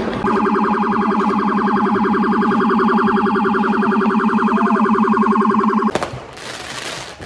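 A vehicle's electronic siren held on one steady, buzzing tone that pulses rapidly for about six seconds, then cuts off. After it comes a short crackling hiss.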